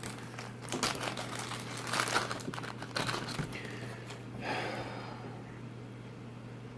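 Plastic packaging crinkling and crackling in irregular bursts as it is handled, softening to a brief rustle near the middle and then going quiet. A steady low hum runs underneath.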